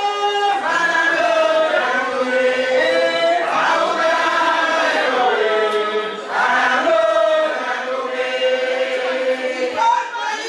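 A group of voices chanting or singing together in long held notes that slide from one pitch to the next, with a short break about six seconds in.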